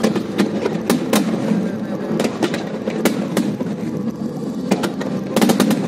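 Fireworks going off in a quick, irregular string of sharp bangs and cracks, about a dozen, with a dense cluster near the end, over a steady background din.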